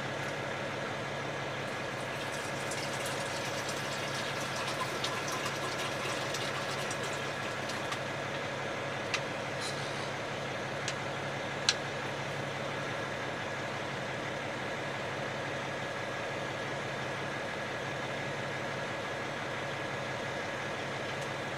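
Semi truck's engine idling, a steady hum heard from inside the sleeper cab. A few small clicks and some light rustling come from items being handled.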